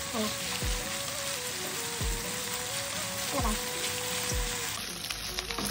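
Marinated chicken pieces sizzling steadily as they brown in hot oil in a nonstick pan, turned now and then with a slotted spatula.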